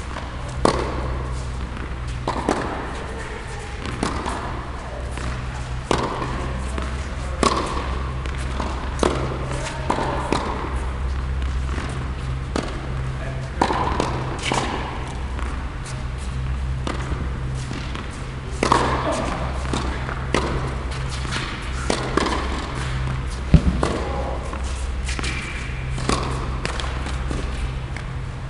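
Tennis rally on an indoor hard court: sharp pops of rackets striking the ball and the ball bouncing, every second or two, echoing in the large hall over a steady low hum.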